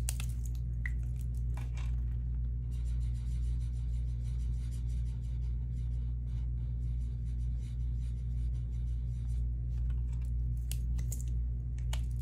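Pen scribbling on paper, colouring in a small circle with quick, even back-and-forth strokes that start about three seconds in and stop about three seconds before the end. A steady low hum runs underneath, with a few light clicks near the start and near the end.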